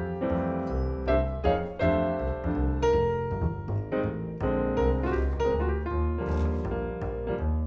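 Background piano music with a steady low bass line.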